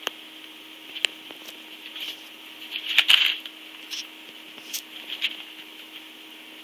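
Two cats shifting against a cardboard box while one grooms the other, making scattered soft rustles and clicks. A louder scrape comes about three seconds in. A steady low hum runs underneath.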